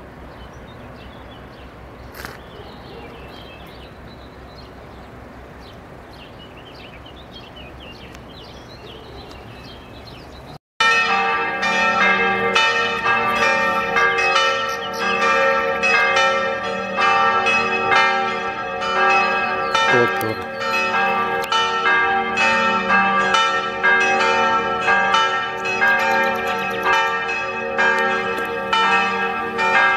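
Church bells pealing, many bells struck in quick succession in a continuous, loud peal that starts suddenly about ten seconds in, after faint background noise.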